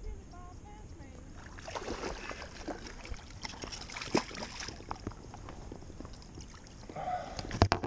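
Water splashing and sloshing beside a kayak for a few seconds as a hooked bass is brought in, with sharp knocks and clatter against the boat near the end.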